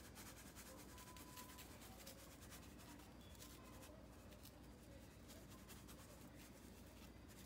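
Faint, scratchy ticking of seasoning being shaken from a plastic shaker bottle onto raw fish fillets in a plastic bowl.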